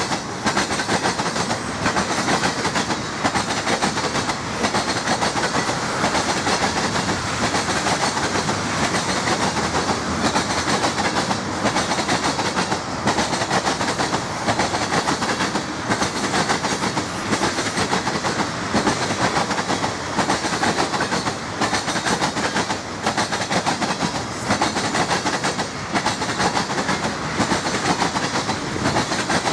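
Freight train of ethanol tank cars rolling past at speed: a steady rumble of wheels on rail, with a repeating clickety-clack as the wheels cross rail joints.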